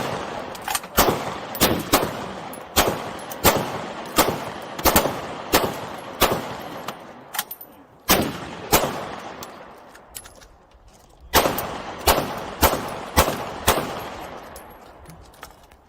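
Gunshots fired one after another, about one to two a second, each sharp crack trailing off in an echo. The firing pauses for about two seconds a little past the middle, then resumes.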